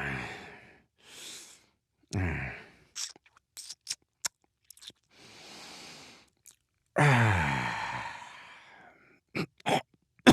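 A man's voice making "dad noises" with no words: short groans, mouth clicks and smacks, a breathy exhale, and near the end a long, loud groan that falls in pitch.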